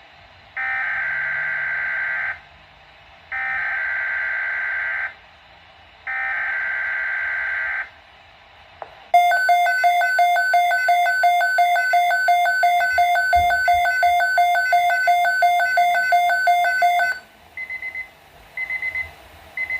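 Weather radio alert: three screeching digital SAME header data bursts, then, after a pause, an electronic alarm beeping rapidly for about eight seconds, then a few short beeps near the end. This is the alert sequence that comes before a new severe weather bulletin.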